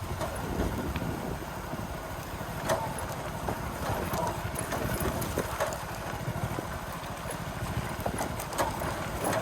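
Small Hero motorcycle engine running while it is ridden over a rough dirt track, with scattered knocks and rattles from the bike on the uneven ground.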